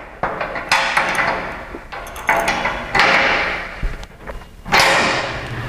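Adjustable wrench tightening a jam nut on the four-post lift's threaded lock-linkage rod: metal clicks and scraping in several bursts.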